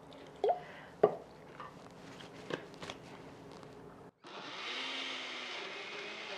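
A few knocks and clatters as a blender jar and its lid are handled, the loudest about a second in. About four seconds in, a countertop blender starts and runs steadily, grinding roasted tomatoes and chiles with water into salsa.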